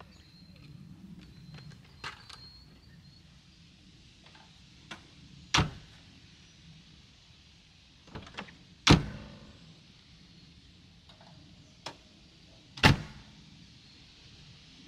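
Chevrolet van doors being shut: three loud slams, about three to four seconds apart, with lighter latch clicks and knocks between them.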